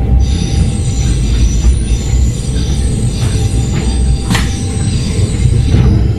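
Stadler GTW diesel railcar running along the track, heard from inside: a low steady rumble with a high-pitched wheel squeal made of several steady tones, which dies away near the end. A few sharp clicks come in the second half.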